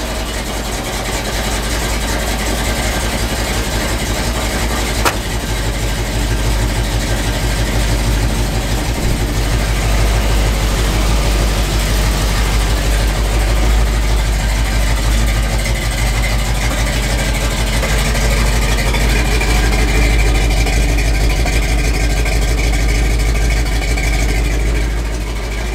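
Bullnose Ford pickup's engine idling steadily with a deep rumble through a freshly welded custom exhaust with a Thrush muffler. A single sharp click about five seconds in.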